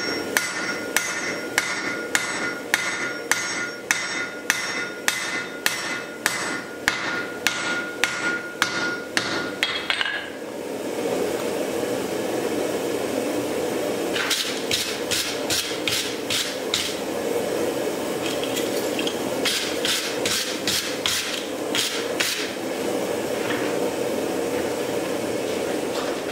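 Hand hammer striking red-hot steel on an anvil, about two blows a second with a ringing anvil tone, for about ten seconds. After a stretch with only a steady rushing noise, two shorter runs of quicker blows follow.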